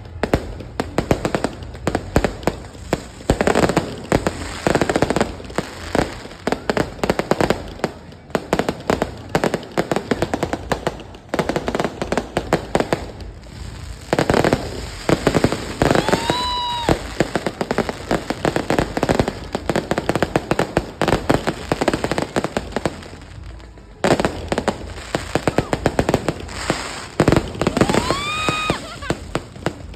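Fireworks going off: dense volleys of rapid crackling pops and bangs, with short lulls between volleys. A rising whistle that levels off sounds about halfway and again near the end.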